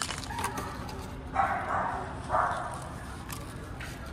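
A dog barking twice, about a second apart.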